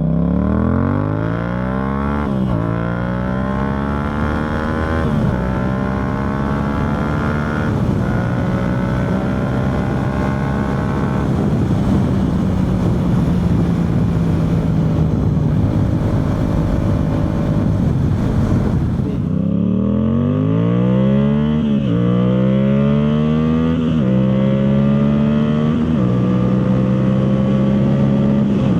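Yamaha MT-07's parallel-twin engine through an Akrapovic full exhaust with the dB killer removed. It accelerates up through the gears, the revs rising and dropping briefly at each upshift, then cruises steadily for several seconds. About two-thirds of the way in it pulls up through the gears again.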